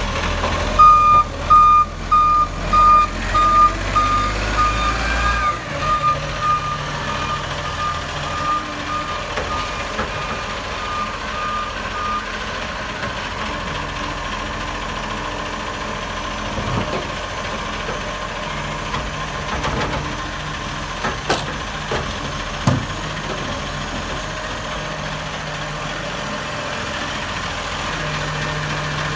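Dennis Eagle side-loading garbage truck's reversing alarm beeping about twice a second, growing fainter and stopping after about twelve seconds, over the truck's engine running. The engine then idles on, with two short sharp clicks a little past twenty seconds.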